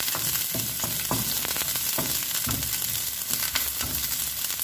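Chopped onion sizzling in olive oil in a non-stick frying pan, stirred with a wooden spoon that knocks and scrapes against the pan again and again.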